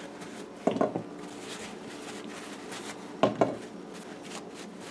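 Fresh okra pods being set down onto a ceramic plate, knocking lightly against it twice, about a second in and again just past three seconds, each time as a quick double tap.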